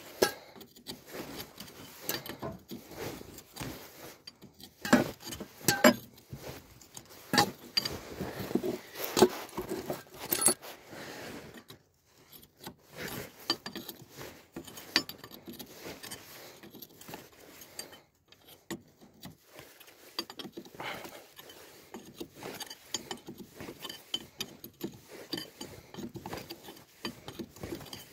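Hand tools and steel parts clinking and knocking irregularly, some strikes ringing briefly, with short pauses, during hands-on work at a trailer's disc-brake axle.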